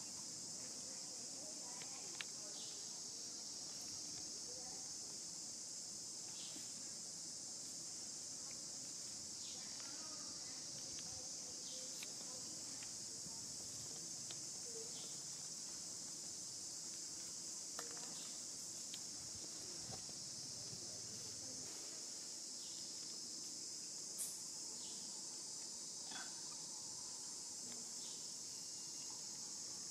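Steady high-pitched chorus of insects, with a few short, faint clicks and chirps scattered through it; the sharpest comes about two-thirds of the way in.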